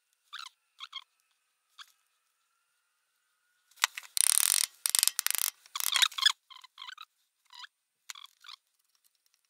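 Sealant being squeezed from a tube along a seal: short squeaky squelches, with a louder hissing stretch about four to six seconds in.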